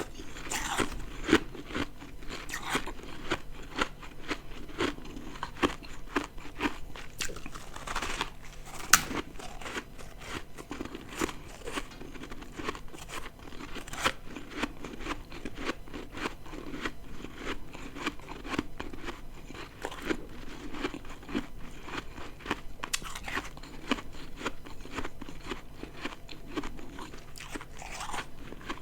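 Ice being bitten and chewed close to the microphone: a continuous run of crisp crunches and crackles.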